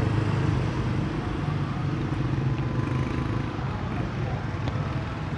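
Steady low mechanical rumble in the background, with a faint click about four and a half seconds in as drill parts are fitted into the plastic housing.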